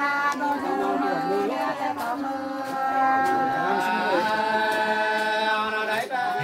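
Sli, the Nùng people's folk song, sung unaccompanied by women in long, drawn-out held notes that slide at the ends of phrases, in a chant-like style.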